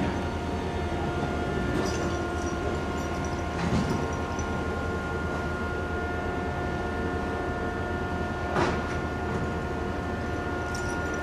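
Heavy construction machinery running steadily, a low diesel hum with a steady high-pitched whine. Three sharp metallic knocks come near the start, about four seconds in and about eight and a half seconds in.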